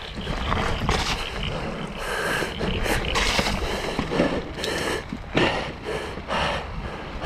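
Mountain bike riding through a fast-flowing muddy creek crossing and wet trail: a steady rush of tyre, water and trail noise with irregular short bursts of splashing and rattling.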